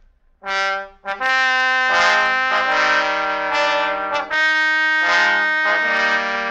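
Brass music bridge, trumpets and trombones playing loud held chords, opening the second act of the radio drama. It starts about half a second in with a short chord, then moves through sustained chords that change every second or so.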